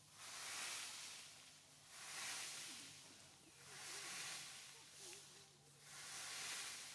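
Faint outdoor hiss swelling and fading in waves about every two seconds, with faint short wavering squeaks underneath.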